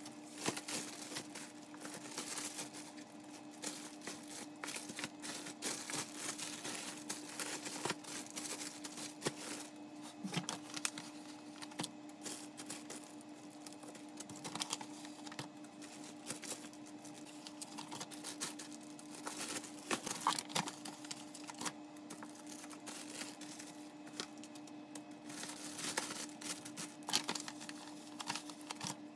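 Clear plastic product bags crinkling and rustling, with many quick, irregular clicks and taps, as barcode labels are peeled off a sheet and pressed onto the bagged items. A steady low hum runs underneath.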